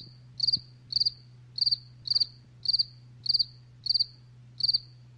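Stock cricket-chirping sound effect: short trilled chirps about twice a second over a low steady hum, the classic 'crickets' of silence. It cuts in and out abruptly as an edited-in clip.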